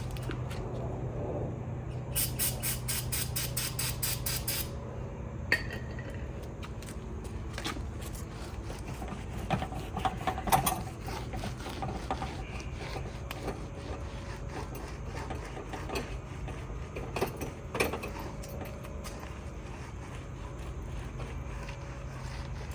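A rag wetted with brake cleaner rubbed hard over a tire's rubber sidewall, squeaking against the rubber. There is a quick run of back-and-forth strokes about two seconds in, then scattered shorter rubs and knocks, over a steady low hum.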